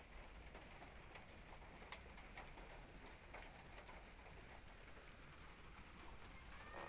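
Near silence: faint background hiss with a few soft clicks.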